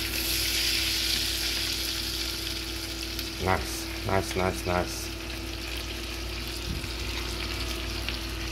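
Mahi-mahi steaks sizzling in butter and olive oil in a stainless steel frying pan. The hiss is strongest in the first couple of seconds and then carries on more softly.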